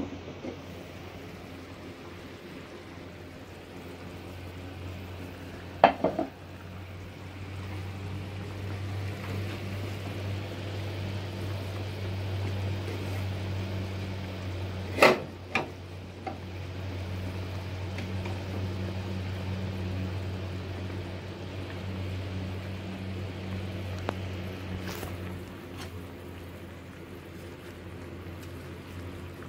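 Chicken and dried shiitake mushrooms simmering in broth in a ceramic clay pot, over a steady low hum. A few sharp knocks of ceramic or utensil against the pot, one about six seconds in, the loudest about halfway, and a last one near the end.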